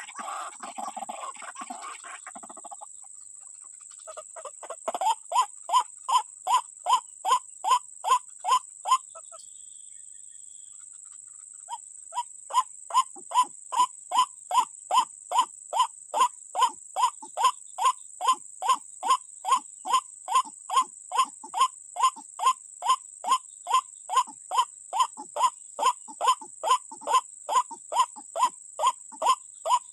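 White-breasted waterhen (ruak-ruak) call: a fast, even series of short pitched notes, about two to three a second. The series starts about four seconds in, breaks off for a few seconds in the middle, then resumes.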